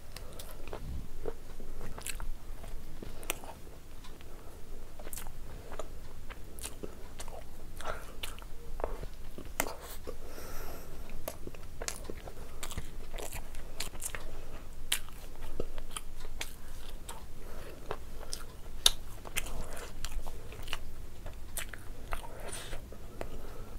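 Close-miked eating sounds: a person biting and chewing vada pav and a fried green chilli, with many short, sharp crunchy and wet mouth clicks throughout.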